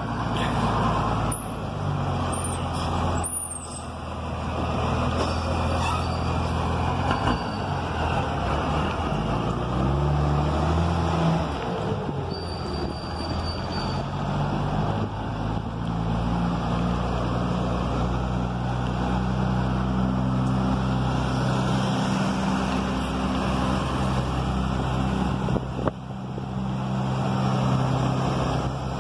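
Diesel engine of a Mercedes-Benz 1113 truck running on the road as it drives, its pitch climbing and dropping several times as it accelerates and shifts gear. A few brief high squeals come in the first few seconds.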